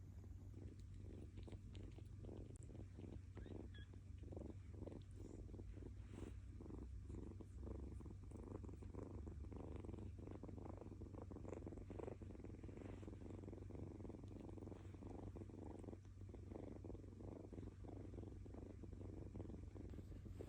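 Kitten purring with a rumbling sound, in even, rhythmic pulses several times a second.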